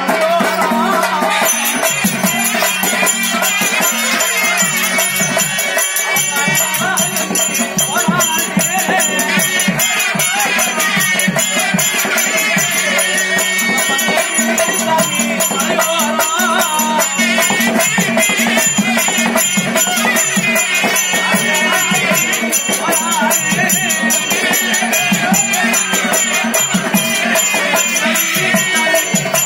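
Tamil therukoothu folk-theatre accompaniment music playing continuously, with a steady low drone and a constant jingling rattle over it.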